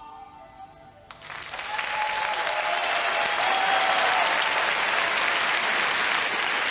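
A crowd applauding. It starts about a second in, just as the quiet tail of a piece of music fades, swells over the next second and then holds steady.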